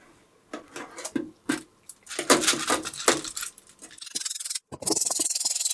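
Wet plastic keycaps clattering and clinking against each other as they are lifted out of an ultrasonic cleaner and dropped into its basket. From about four seconds in, a steady hiss takes over.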